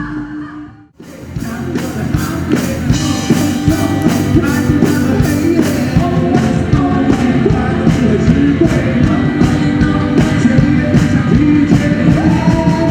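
Live rock band music with singing. The sound drops out briefly about a second in, then the band comes back loud with a steady drum beat under the vocals.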